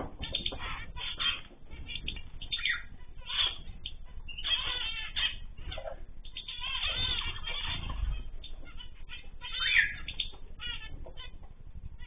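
Mixed aviary birds (cockatiels, zebra finches, canaries and goldfinches) chirping and calling over one another in a busy, overlapping chatter, with some wing flutter among the calls.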